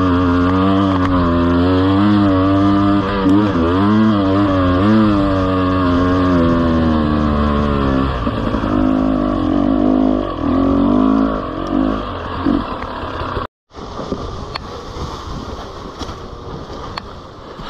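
GasGas EC 300 two-stroke enduro motorcycle under way on a dirt trail, its engine note wavering with the throttle. About eight seconds in the revs drop and the note turns choppy and fades. Near the middle the sound cuts out for a moment, then rattling and rustling of the bike over the rough leaf-strewn ground take over with little engine heard.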